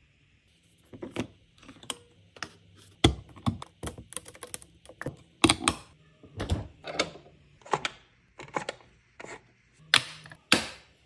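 Irregular run of sharp clicks, taps and knocks, roughly two a second, from hands working kitchen fixtures: a dishwasher's detergent dispenser and door, then push-on under-cabinet puck lights.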